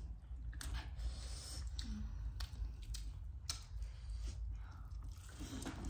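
Crispy Korean fried chicken being torn apart by hand and chewed, giving scattered crackles and clicks of the crust.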